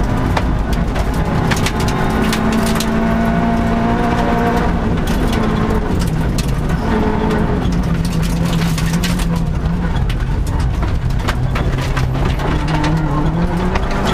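Vauxhall Corsa 1600 rally car's 1.6-litre four-cylinder engine pulling hard through the gears, heard inside the cabin, its note rising and dropping as it shifts. Gravel and stones clatter against the underside in sharp clicks.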